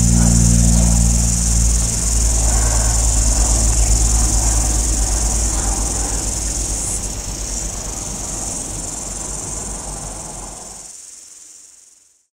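A steady, high insect chorus with a low droning hum beneath it. The hum thins out after about two seconds, and the whole sound fades out near the end.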